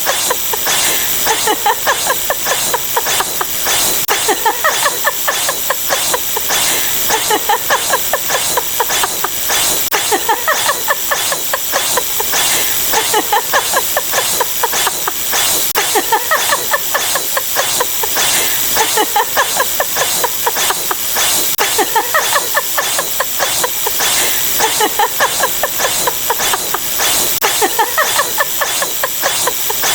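A dense, unbroken jumble of overlapping stock sound effects set off in rapid succession, with fast, even clicking under a steady hiss.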